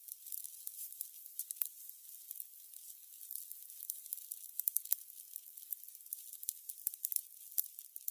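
Candles burning: a soft, steady hiss with many small, irregular crackles and pops.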